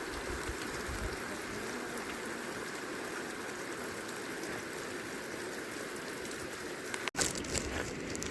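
Steady rain falling. About seven seconds in, the sound cuts out for an instant, and a few sharp clicks follow.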